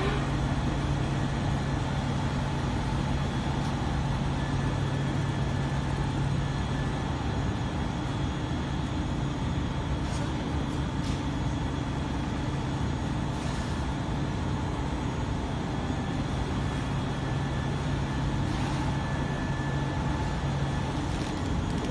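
Steady drone of carpet-production machinery running, with a constant low hum under a wide noisy wash and a few faint ticks.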